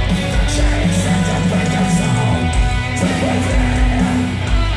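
Metalcore band playing live at full volume: heavy distorted electric guitars over pounding kick drums, heard from within the crowd.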